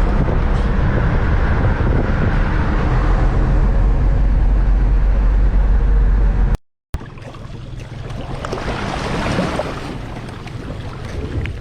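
Motorboat running underway: a steady engine drone with rushing wind and water. It cuts off abruptly about two-thirds of the way through, followed by a quieter stretch of wind and water noise.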